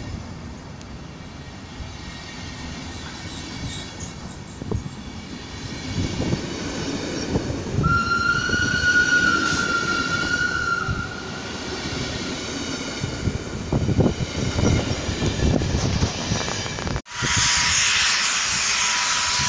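SBB passenger train coaches rolling past at close range, wheels rumbling and clattering, with a high wheel squeal from about 8 to 11 seconds in. Near the end the sound cuts abruptly to a loud steady hiss.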